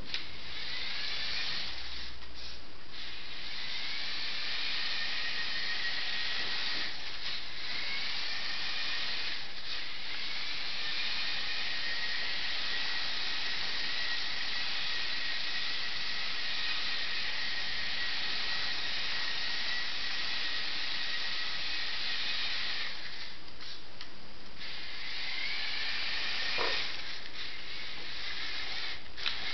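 Electric drive motor and gears of a motorized LEGO racing truck whirring as it drives. The high whine stops briefly a few times and rises again each time it restarts.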